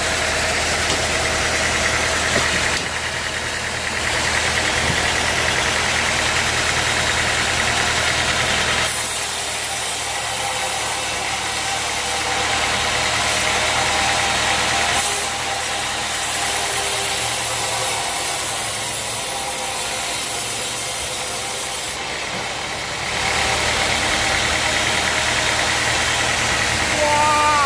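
Sawmill machinery running steadily with engine noise, its sound changing abruptly several times.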